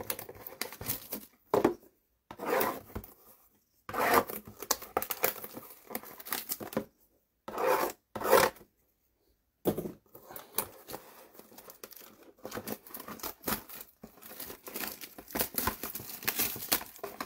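Trading card packaging being torn open and crinkled by hand: several ripping tears with short pauses between them, then quick, continuous crinkling from about ten seconds in.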